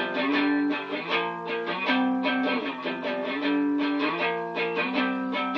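Instrumental music: guitar chords strummed in a steady rhythm, with no singing.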